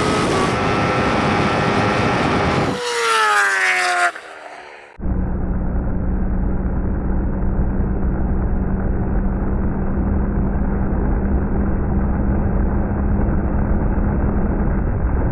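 High-performance vehicles running flat out at the end of a race: a loud rush of wind and drivetrain with a rising whine, then about three seconds in a whine falling steadily in pitch as a vehicle slows down. From about five seconds in, a steady rush of wind and road noise with a low, even hum, as heard from an onboard camera.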